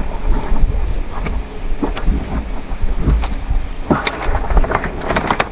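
Scattered knocks and clicks of hands working at a lowered, partly full car fuel tank and its fuel lines, over a steady low rumble.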